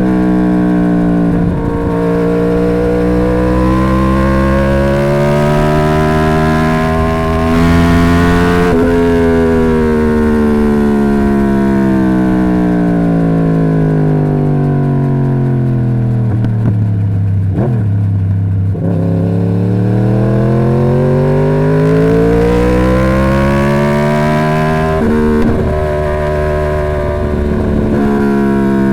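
2011 Yamaha YZF-R1's crossplane inline-four running through its stock exhaust, the engine note climbing slowly for about eight seconds, falling steadily for about ten, then climbing again near the end.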